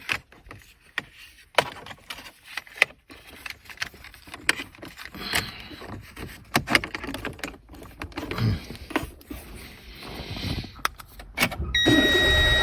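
Scattered plastic clicks and knocks as the repaired Renault key card is handled and pushed into the car's card reader, then near the end a steady electronic beep tone comes on with a low rumble as the ignition is engaged.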